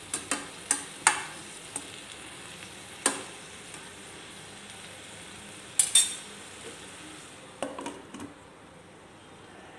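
Steel spoon stirring diced bottle gourd in a stainless steel pan, sharp scrapes and clinks of the spoon against the pan over a steady frying sizzle. Near the end a glass lid is set on the pan with a few clinks, and the sizzle becomes a little quieter.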